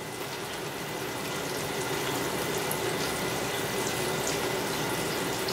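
Green tomato slices deep-frying in hot oil in a 4-liter deep fryer: a steady sizzling hiss.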